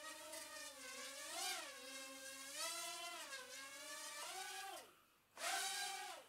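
Micro quadcopter's four 8.5 mm brushed motors and small props whining, the pitch rising and falling as the throttle changes. About five seconds in the whine drops away to almost nothing for half a second, then comes back.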